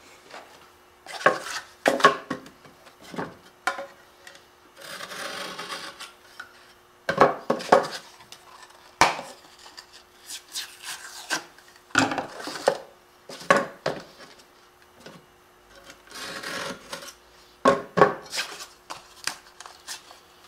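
A drywall patch piece being cut and broken by hand, with gypsum strips snapped and pulled off the face paper: irregular knocks and snaps, with two longer scraping stretches about five and sixteen seconds in.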